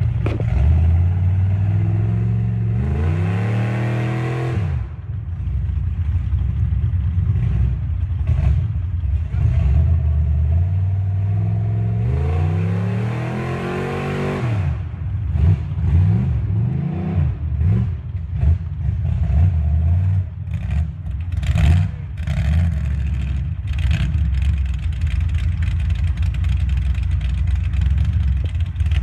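Engine of an off-road 4x4 SUV revving hard as it works through mud. The revs climb steeply twice, about a second in and again around twelve seconds, then fall away. After that come uneven throttle blips with scattered knocks and clatter.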